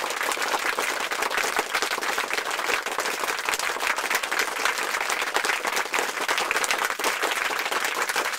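Applause: many hands clapping steadily in a dense patter.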